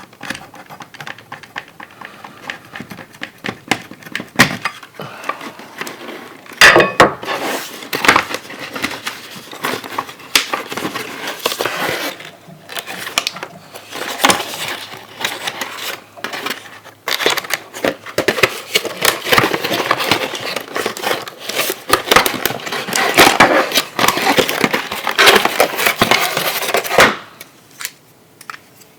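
Plastic and cardboard packaging of a boxed action figure being handled and opened, crackling and rustling with many sharp clicks and knocks, stopping about two seconds before the end.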